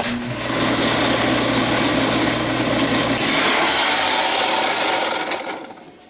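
Maytag Jet Clean Quiet Pack dishwasher running with a loud grinding rasp: a broken-off piece of the discharge pump housing rubbing on the pump impeller. It starts abruptly, has a low hum under it for the first three seconds, and dies down near the end.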